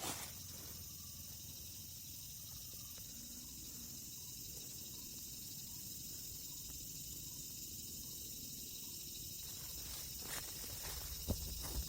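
Steady high-pitched hiss of insects in the background, with a few faint clicks or snaps near the end.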